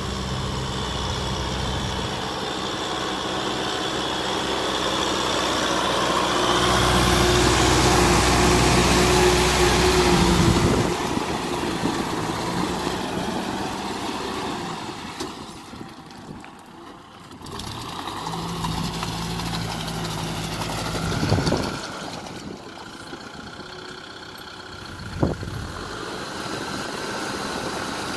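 Kubota M6040SU tractor's diesel engine running under load while it works a rotary tiller and blade through wet rice-paddy mud. The engine grows louder for a few seconds about a quarter of the way in and drops away around the middle, with two short, sharp knocks later on.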